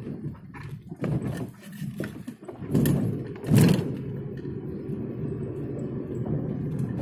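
Car engine and tyre noise heard from inside the cabin while driving slowly, a steady low hum. Several short knocks about a second in, and a louder thump about three and a half seconds in.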